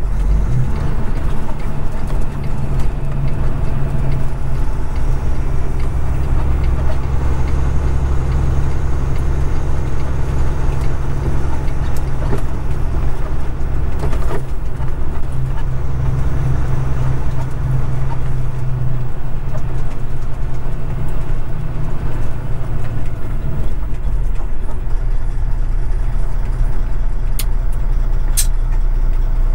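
Kenworth road-train prime mover's diesel engine running, a steady deep drone with a few short sharp clicks, two of them close together near the end.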